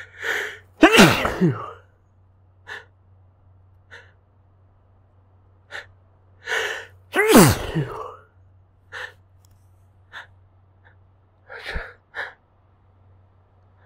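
Two stifled human sneezes, about a second in and about seven seconds in, each set off by a sharp gasping breath in. Short sniffs and breaths come between them. The sneezes still come out loud despite the effort to hold them in.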